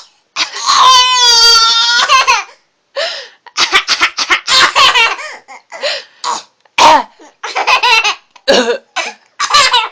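A young child laughing in fits: a long, high-pitched laugh about half a second in, lasting some two seconds, then a run of short bursts of laughter.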